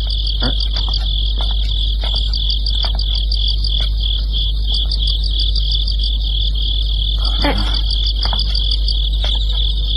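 Crickets chirping in a steady, fast, even pulsing trill over a constant low electrical hum, with a few faint clicks and knocks.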